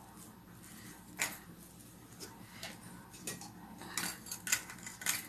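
Steel kitchenware clinking and knocking while gram-flour dough is mixed by hand in a steel bowl: one sharp clink about a second in, then a quick cluster of clinks near the end as a tea strainer is set over a steel vessel.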